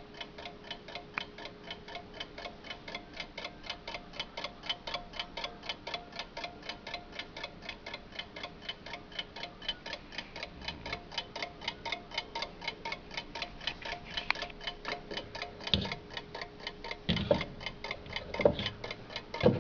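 1918 Waterbury wind-up alarm clock ticking steadily, about five ticks a second. A few louder knocks come near the end.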